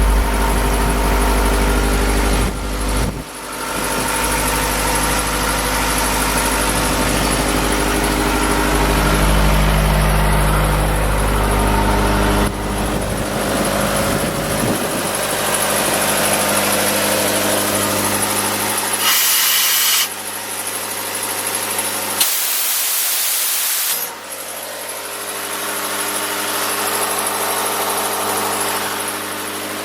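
Atlas Copco XAS185 diesel air compressor running, a steady engine note whose deep low end drops away about halfway through as it settles to a lighter run. Two short bursts of hiss come about two-thirds of the way in.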